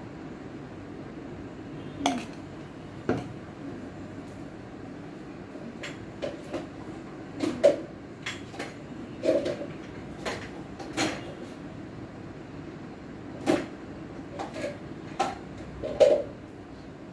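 Kitchen containers and utensils being handled: about fifteen irregular knocks and clicks, some with a short hollow ring, scattered over a steady low background hum.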